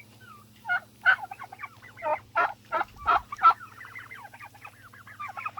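Turkeys calling in a flock: scattered short chirps and yelps, then a fast run of small warbling notes in the second half.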